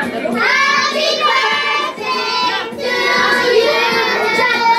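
A group of children singing together in long, held phrases.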